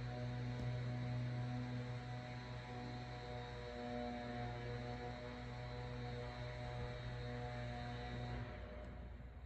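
A steady hum made of several fixed pitches over a background hiss, the lowest pitch the strongest. It dips briefly near the end.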